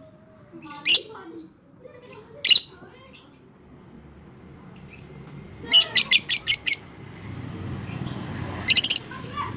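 Lovebird calling: two sharp single shrieks, then two short runs of rapid repeated shrill notes, the chattering 'ngekek' call, the first run about a second long near the middle and a shorter one near the end.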